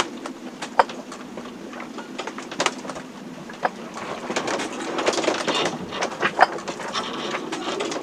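A sailboat working in a storm, heard from inside the cabin: irregular clicks, creaks and sharp knocks from the boat's structure and fittings, busier in the middle, over a steady low rushing. A few single knocks stand out loudest.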